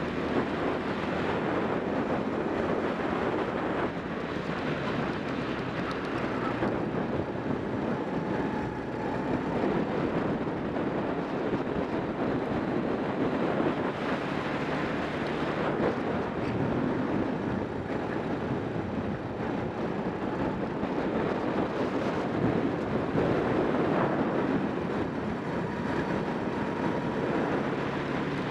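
Racing kart's engine running at speed on track, heard from an onboard camera, with wind noise on the microphone; a steady, dense sound without breaks.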